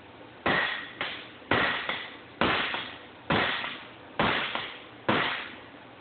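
Soft hammer striking a steel bench dome set in the end of a steel exhaust tube, six blows about once a second, each with a short metallic ring, swelling the tube end out.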